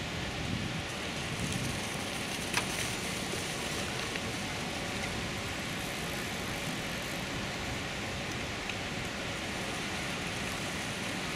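Steady outdoor background hiss with no clear single source, broken by one sharp click about two and a half seconds in.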